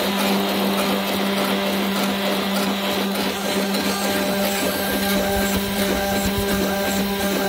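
CNC mill spindle running steadily while its end mill cuts a slot in a dark sheet workpiece at a raised feed rate: a constant low whine with overtones under the grinding noise of the cut.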